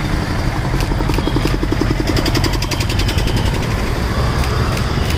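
Busy road traffic dominated by motorbike and scooter engines running close by, over a steady low rumble. From about one to three seconds in, one two-wheeler's engine putters rapidly and evenly as it passes near.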